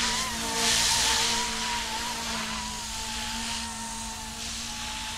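Goosky E2 200-size electric RC scale helicopter flying low and coming down to land: a steady high motor and rotor whine that wavers slightly in pitch over a low rotor hum, with a rush of air noise about a second in.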